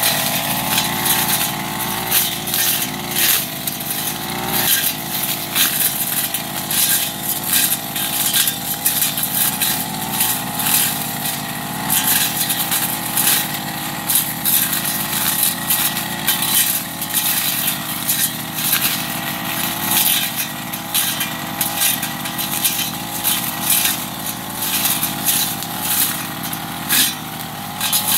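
Backpack brush cutter engine running at steady high speed, its pitch sagging briefly now and then under load. Its blade makes frequent short hits as it slashes through grass and undergrowth.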